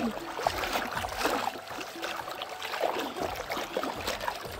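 Floodwater sloshing and splashing irregularly as people wade through a river, dragging a fishing net.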